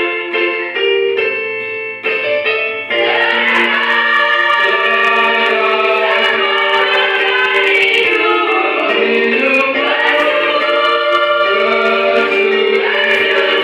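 Church choir singing a hymn, held chords at first with a short break about two seconds in, then fuller singing from about three seconds in.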